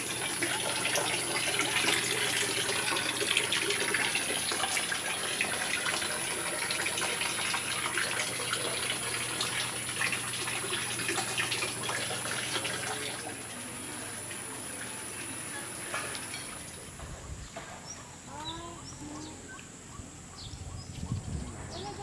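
Water running and splashing, with a steady high-pitched whine above it. About two-thirds of the way through, the whine and most of the water stop, and short chirps are heard over quieter ambience.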